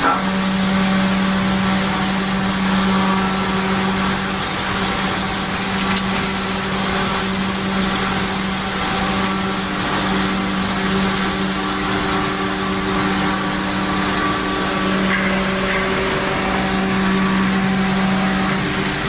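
CNC router's spindle running with a steady hum while the machine cuts wood, a constant whirring noise over it.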